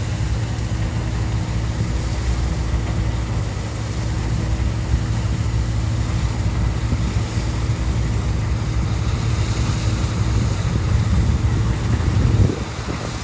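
Heavy diesel farm machinery engine running steadily with a low rumble, dropping off suddenly about twelve seconds in.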